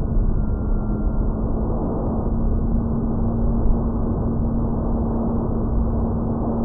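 Motor and propeller of a foamboard RC plane running at a steady pitch in flight, picked up by a microphone on the airframe, with heavy wind rush over it.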